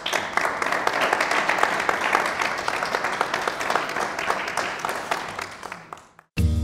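Audience applauding, dying away about six seconds in; music starts abruptly just at the end.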